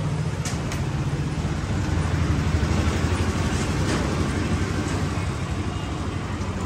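Street traffic: a steady low rumble of vehicle engines, with faint voices in the background.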